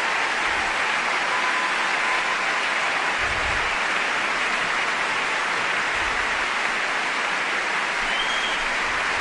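A large arena crowd applauding steadily.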